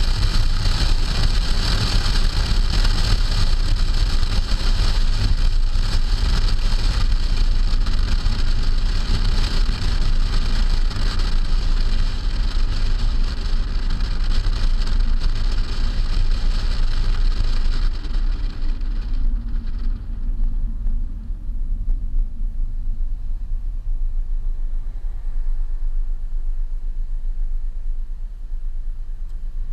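Wind rushing over a car's trunk and road noise from a 2008 Hyundai Sonata on the move, with a steady low rumble. About two-thirds of the way through, the hiss falls away sharply as the car slows, leaving a quieter low rumble.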